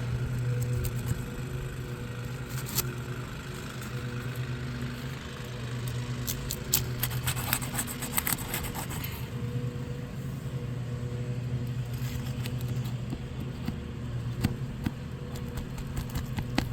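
Roof shingles scraping and crackling with sharp clicks as an old wind-damaged shingle is lifted and its nails worked loose, busiest around the middle. Under it runs a steady low mechanical hum.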